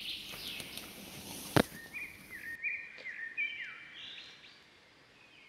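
Birds calling: a run of short whistled notes, several sliding down in pitch, in the second half. Before them a rustle and one sharp click about one and a half seconds in, the loudest sound.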